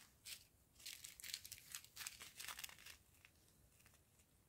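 Faint crinkling of a clear plastic bag of round diamond-painting drills being handled, a string of short rustles between about one and three seconds in.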